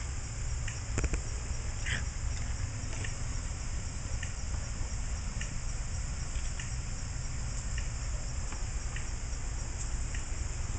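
A steady high-pitched chirring, with a faint, very consistent click repeating about once a second over a low hum. The source is unseen; the onlookers take the clicking for some kind of animal.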